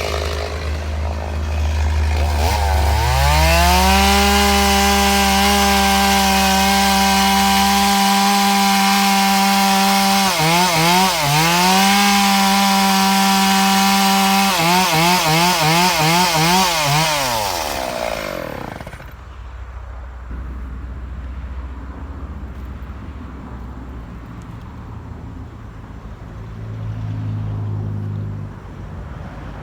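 Two-stroke chainsaw revving up to full throttle and holding a high steady pitch, dipping briefly twice. It then pumps the throttle rapidly several times and winds down to a low idle.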